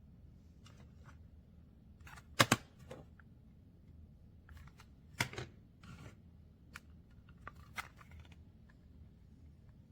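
Hard toy pieces being handled, knocking and clicking together: a sharp double knock about two and a half seconds in, another knock about five seconds in, then a few lighter clicks.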